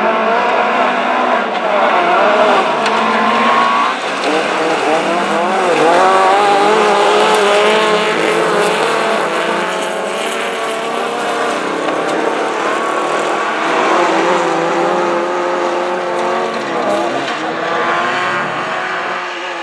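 Several dirt-track race cars running hard together, their engines revving up and down as the drivers accelerate and lift through the corners.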